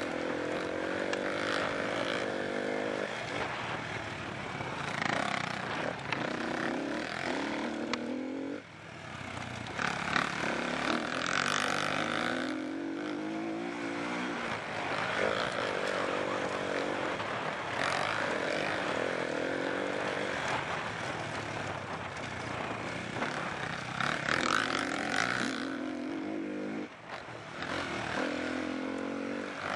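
SWM 300 enduro motorcycle's single-cylinder four-stroke engine heard from on board, revving hard with its pitch sweeping up through the gears and falling back again and again. The sound drops off sharply twice, about a third of the way in and near the end, as the throttle is shut.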